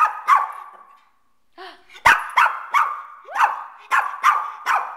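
Shih Tzu barking repeatedly: two sharp barks, a short pause about a second in, then a run of about seven more quick barks.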